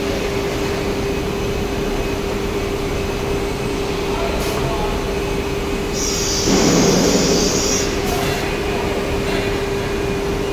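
SUDIAO carousel automatic-tool-change CNC router running, its spindle giving a steady whine over machine noise. Partway through, a hiss rises for about a second and a half, then stops.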